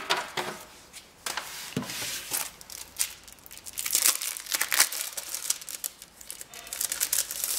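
Paper sticker sheets being handled and shuffled by hand, with irregular rustling and crinkling.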